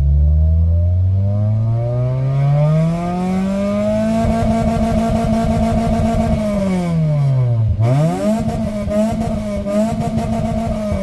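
An engine revving up: the pitch climbs steadily for about four seconds and holds at high revs. About three-quarters of the way through the revs drop sharply, then climb straight back up and hold.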